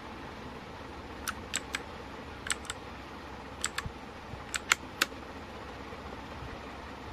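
Keys of an HP GK400F mechanical keyboard being pressed: about a dozen sharp clicks in small groups of two or three, with a pause near the end.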